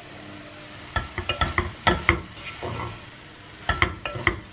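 Wooden spatula stirring rice and vegetables in a pot on the stove: runs of quick scraping knocks against the pot about a second in and again near the end, over a low steady sizzle.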